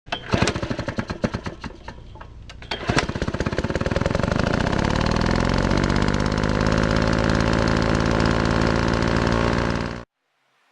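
Snow thrower's small gasoline engine firing in rapid, uneven pops, then catching about three seconds in, revving up and running steadily. It cuts off abruptly near the end.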